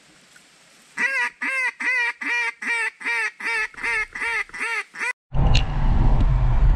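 A run of about a dozen evenly spaced duck quacks, roughly three a second, easing off a little toward the end. Then an abrupt cut to the steady low rumble of a vehicle's cabin on the road.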